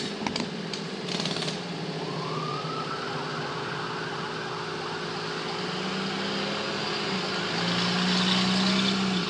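Engine-driven machinery running steadily with a low hum. In the last three seconds it gets louder, with a hissing rush on top, then cuts off abruptly at the end.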